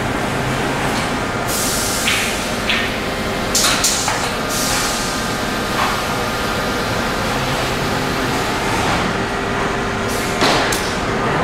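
Steady din of a running MDF panel production line, with a constant hum, a few short hisses and several sharp clanks, the loudest about ten seconds in.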